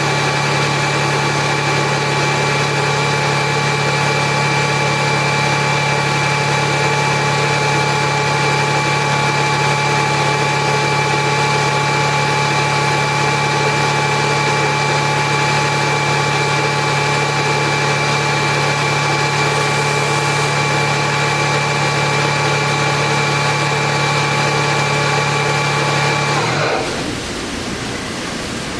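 Atlas Copco GX7FF 10 HP rotary screw air compressor running with a steady hum and whine. Near the end the hum winds down and stops, leaving a steady hiss.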